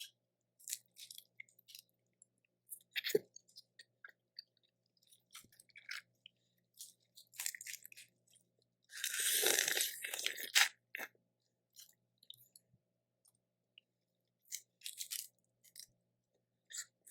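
Close-miked chewing and crunching as a person eats Cajun seafood boil, in short scattered bites and mouth sounds. There is a louder, longer crunch about nine seconds in.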